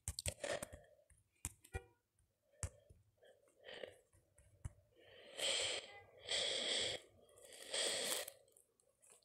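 Faint scattered clicks and taps during the first few seconds, then three short breathy noise bursts, each under a second, about five to eight seconds in.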